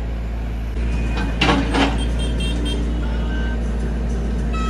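Diesel engine of a JCB backhoe loader running steadily, heard from its cab while it loads a tipper truck. There are a few sharp knocks about a second and a half in, and a horn starts sounding right at the end.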